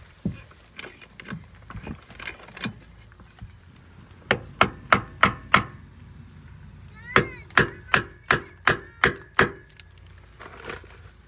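Hammer driving wooden shims tight between a concrete block pier and the steel frame of a mobile home. The sharp knocks come in two quick runs, about five strikes and then about seven, roughly three a second, after a few lighter taps.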